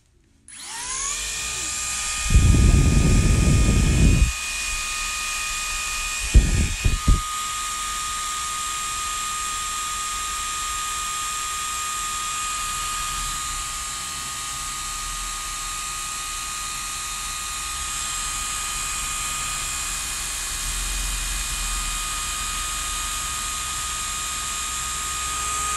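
Small propeller motor of a caged LED flying-spinner ball toy spinning up with a rising whine about half a second in, then running with a steady high-pitched whine. About two seconds in, a loud low rumble covers it for two seconds, with a few shorter rumbles a few seconds later.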